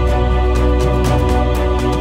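Background music: held chords over a deep bass, with a steady light beat.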